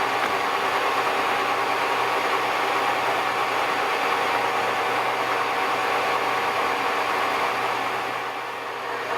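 TOS SUI50A engine lathe running, a steady machine drone with a whine from the headstock gearing. The level dips slightly about eight seconds in.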